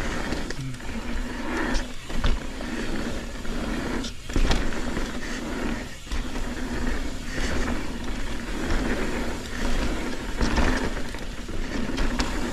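Mountain bike riding fast down a dirt trail: wind rushing over the camera microphone and tyres rolling on dirt and rock, with sharp knocks and rattles from the bike over bumps a few times.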